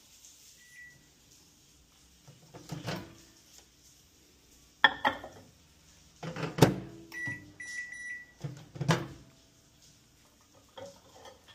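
Microwave oven handling: the door latch clicking and the door knocking open and shut several times, the loudest knock past the middle, with the oven's electronic beeps, a short one about a second in and a pair just after the middle.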